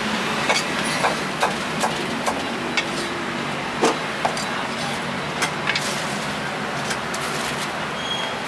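Meat cleaver chopping on a thick round wooden chopping block: about a dozen sharp, irregular knocks that stop about seven seconds in. Steady street traffic noise runs underneath.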